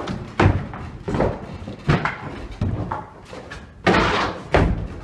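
Feet running and stomping on hollow wooden stage platforms: a series of irregular heavy thuds during staff-fighting practice.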